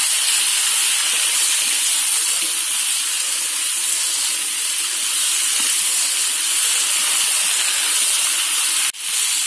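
Sliced potatoes sizzling in hot mustard oil in a kadhai as they are stirred with a wooden spatula: a steady hiss that cuts out for an instant near the end.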